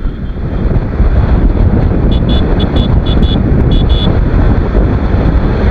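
Heavy wind rush buffeting the microphone on a TVS Apache RR 310 motorcycle ridden at highway speed. About two seconds in, a string of short, high beeps sounds for about two seconds.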